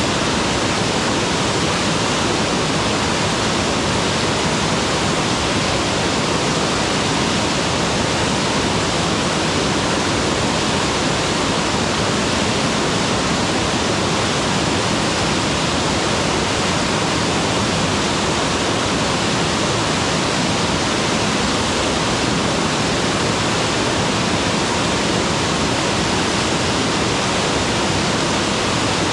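Mountain waterfall: water pouring and splashing in a steady, unbroken rush.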